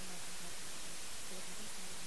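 Steady white noise hiss, with a faint, low voice buried beneath it: subliminal affirmations masked by the noise.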